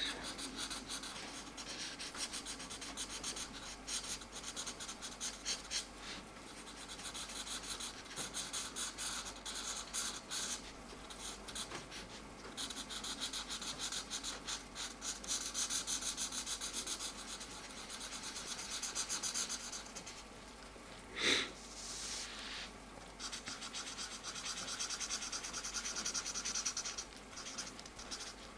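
Mancola felt-tip markers scratching over colouring-book paper in quick back-and-forth strokes, in runs with short pauses between them. One short, louder sound about two-thirds through.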